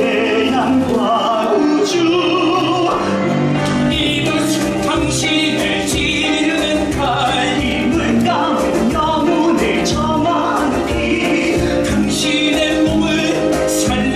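A musical-theatre song: men's voices singing over instrumental accompaniment, with sharp percussive hits through it.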